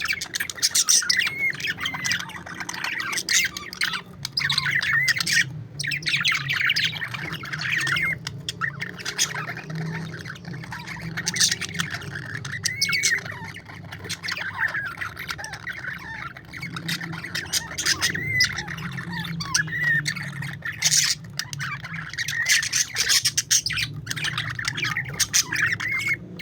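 Several budgerigars chattering together in a continuous stream of warbles, chirps and squawks.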